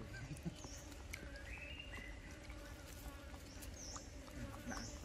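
Quiet forest ambience: birds give several short high chirps and a brief warbling call, over a steady insect hum and a few faint clicks.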